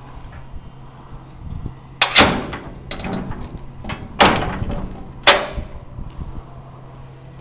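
Slam latch and safety catch on a metal livestock trailer gate clanking shut: four sharp metal-on-metal strikes with a ringing tail, the first two in quick succession about two seconds in, then one each at about four and five seconds.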